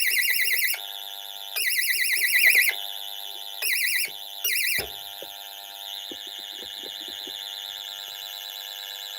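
Pyronix Paragon Super intruder alarm sounding with the panel in fault: a piezo sounder's fast warbling tone comes in four loud bursts that stop and start over the first five seconds. Under it a steady electronic tone carries on, alone after that.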